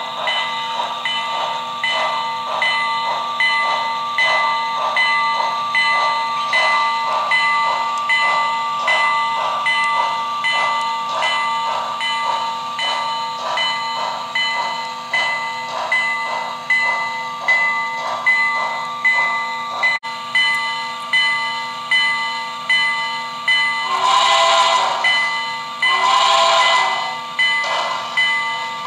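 Sound system of a model B&O steam locomotive playing a slow, steady chuff, about two beats a second, over a constant hum. Two whistle blasts sound about three quarters of the way through.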